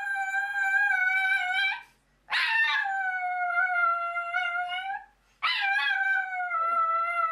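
Dog howling: a run of long, drawn-out howls of two to three seconds each, with short breaks between them, the pitch sagging slightly toward the end of each.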